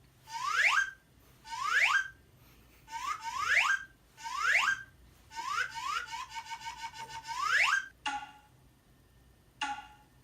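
Comic sound effect from a sound-effect app: a string of quick upward whistle glides, each under a second, then a longer warbling trill that ends in a rise, and two short blips near the end.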